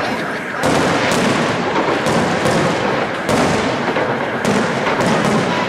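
Aerial firework shells bursting in a dense barrage: a rapid, overlapping string of loud bangs, with a brief lull about half a second in.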